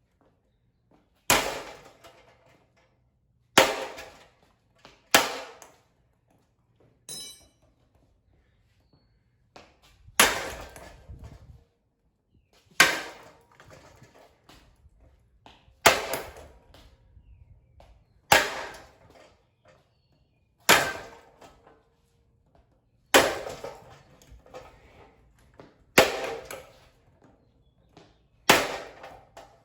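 Repeated hard blows on a hanging ceiling fan's plastic blades, about one every two and a half seconds, each a sharp crack with a short ringing tail.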